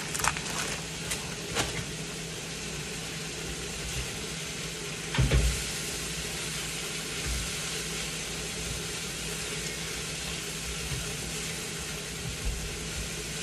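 Chopped lamb and beef sizzling steadily in a non-stick frying pan over a gas burner, with a plastic spatula stirring and scraping. There are a few light clicks near the start and one louder thump about five seconds in.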